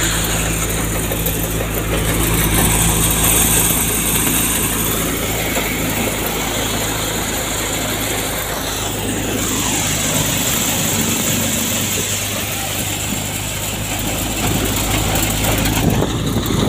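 Sund multi-cutter thresher running steadily at threshing speed: a constant low engine hum under an even, noisy rush.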